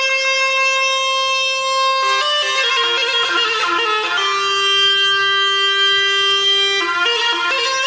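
Background music played on a bagpipe-like reed instrument, holding long notes. There is a quicker run of notes about two seconds in and again near the end.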